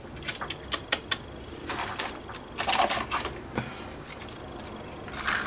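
Small beads clicking and clattering in irregular bursts as they are handled and sorted by hand.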